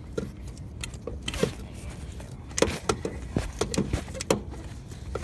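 Hydraulic floor jack being worked with its long steel handle: a run of irregular metal clanks and clicks, sparse at first and coming quickly in the second half.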